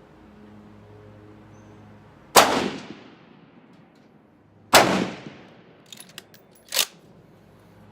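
Two rifle shots from a Blaser Tactical 2 with a 5.56 barrel firing 55-grain Wolf Gold ball ammunition, about two and a half seconds apart, each ringing out briefly. A few quick clicks and a short clack follow near the end.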